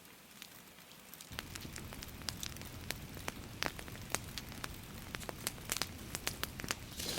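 Light rain hissing softly, then, a little over a second in, a wood campfire crackling with frequent sharp, irregular pops.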